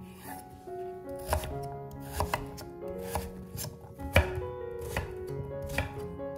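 Santoku knife chopping raw pumpkin into cubes on a wooden cutting board, with irregular strokes about once a second as the blade cuts through and taps the board. The sharpest stroke comes about four seconds in.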